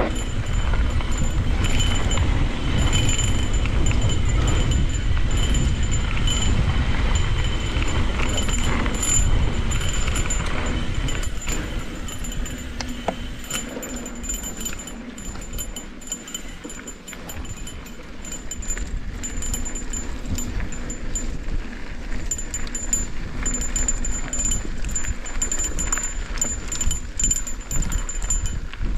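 Cannondale Scalpel full-suspension mountain bike riding down a dirt singletrack: a steady run of tyre noise and chain and frame rattle, with wind rumble on the microphone. It is heavier and louder for the first dozen seconds, then quieter.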